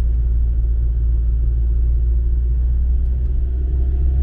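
Steady low rumble of a 2013 Volkswagen Transporter T5 van driving on a rough road, heard from inside the cabin: engine and tyre noise with a faint steady hum above it.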